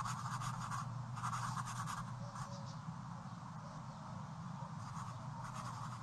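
Faint scratching of a pen on paper as a child draws, in a few short strokes, with the clearest in the first two seconds or so and a weaker one later on.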